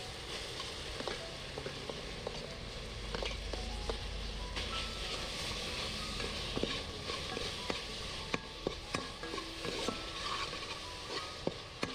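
Hot palm sugar and oil sizzling in an aluminium pot as sliced aromatics and red chillies go in and are stirred, with a metal ladle scraping and clinking against the pot. The sharp clinks come more often in the second half.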